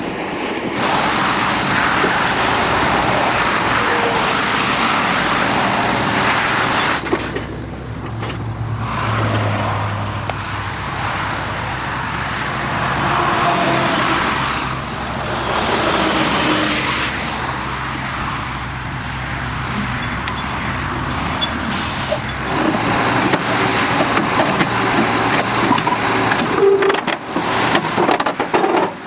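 Heavy machinery engines running, with the noise changing abruptly several times.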